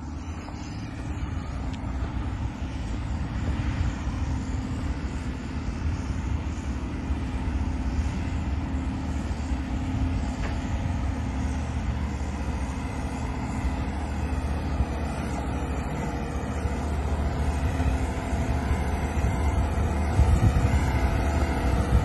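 Diesel engine of a Dynapac single-drum soil compactor running steadily, slowly growing louder as the roller drives closer.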